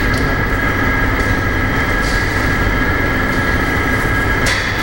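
Power sanding equipment in a body shop, most likely an electric sander with dust extraction, running steadily while body filler is sanded. It makes a continuous rumble with a steady high whine on top.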